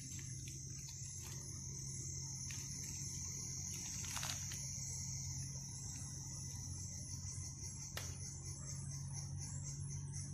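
Night insect chorus: a continuous high-pitched trill from crickets, turning into an even pulsing near the end, with a couple of faint clicks.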